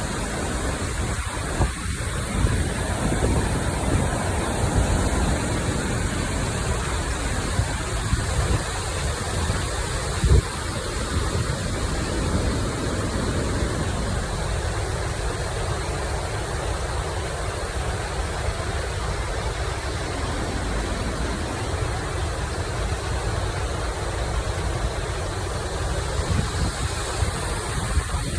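Gorōgataki waterfall plunging into its pool, heard from the base: a steady, loud rush of falling water. A few low thumps of wind on the microphone, the strongest about ten seconds in.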